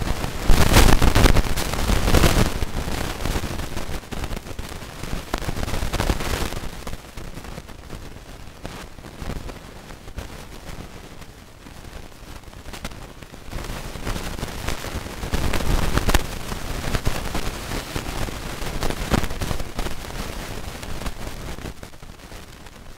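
Bombardier C30 metro train heard from inside the car as it runs through a tunnel between stations: a loud rumble of wheels on rail with a constant clatter of small knocks, swelling several times and easing off near the end as the train slows for the next station.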